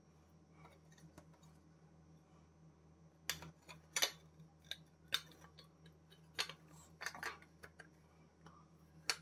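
Scattered sharp clicks and clinks, starting about three seconds in, as the Indian Scout Bobber's headlight shell is tipped and knocked against a stone worktop to shake out soil and bits of wire clip. A faint steady low hum lies under it.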